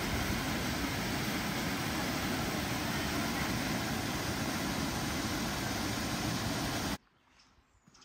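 Waterfall, water pouring over rocks in a steady, even rush, cutting off abruptly about seven seconds in. After the cut there is only faint background with a few high chirps near the end.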